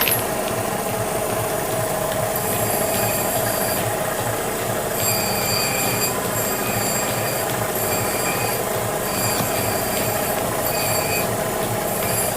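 A workshop machine running steadily, with a high-pitched metallic squeal that starts about halfway through and comes and goes about once a second.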